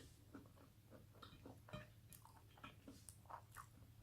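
Faint chewing: soft wet mouth clicks and smacks, scattered and irregular, of someone eating rice and rendang.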